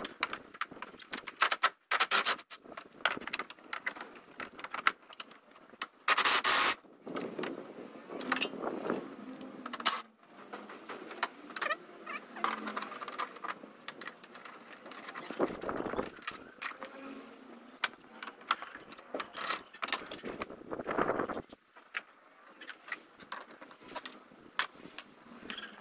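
Hand tools working on the radiator's front mounting bolts: irregular metallic clicks, clinks and scrapes, with one loud burst of noise about six seconds in.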